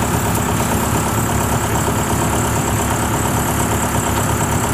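Engine of a homemade tracked rice-hauling cart, loaded with rice sacks, running steadily with a rapid, even low pulsing as it drives across the field.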